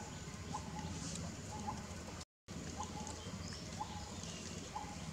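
Short pitched animal calls repeated about once a second over a steady outdoor background; the sound cuts out completely for a moment about two seconds in.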